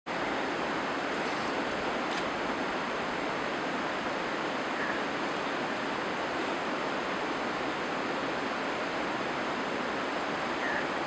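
Steady rushing noise of running water, even and unbroken, with a faint short chirp about five seconds in.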